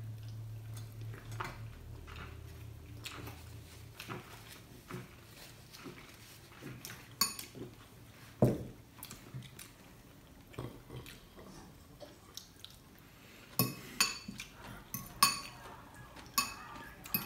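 A metal fork clinking and scraping against a glass bowl and plates, in scattered sharp clicks: the loudest about eight seconds in and a busy run of clinks near the end.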